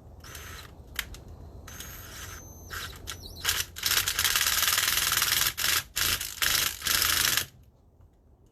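Hand-pumped hydraulic crimper being worked on a 4/0 cable connector: irregular bursts of scraping, rasping mechanical noise, short at first, then a nearly continuous stretch of about four seconds in the middle that stops abruptly.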